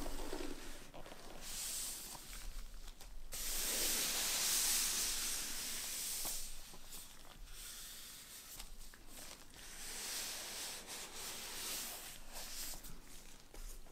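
Gloved hands rubbing and sliding over a cardboard box, with soft scuffs and taps. There is a low knock at the start as the box is set down, and the loudest, longest rub comes about three seconds in.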